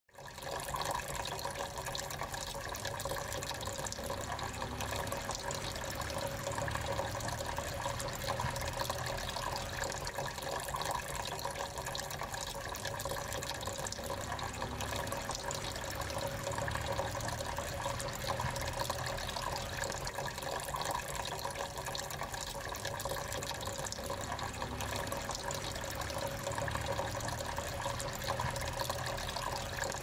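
Water trickling steadily in a small tabletop fountain, falling in thin streams from one little pot to the next and splashing into the basin below.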